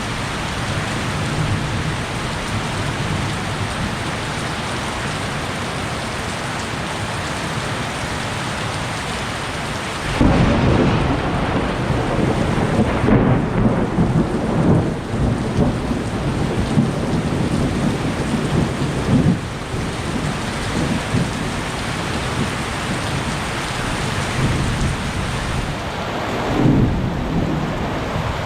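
Heavy rain falling steadily. About ten seconds in, a loud clap of thunder breaks and rumbles on for nearly ten seconds, and a shorter rumble of thunder comes near the end.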